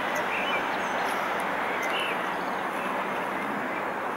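A few short bird chirps over a steady rushing background noise.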